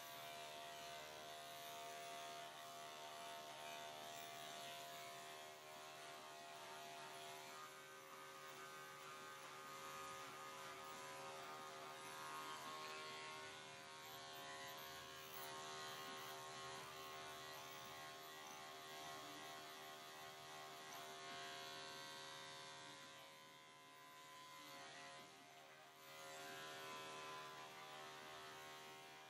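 Electric dog clipper running steadily as it shaves through a pelt-matted coat, with a brief dip in level near the end.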